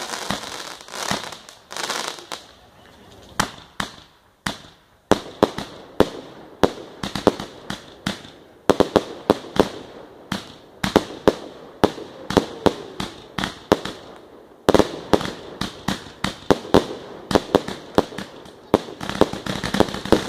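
Cienfuegos "Gran Vendimia" 300-shot fireworks cake firing: a long, uneven run of sharp bangs. The shots thin out for a couple of seconds about three seconds in, then come two or three a second, growing denser toward the end.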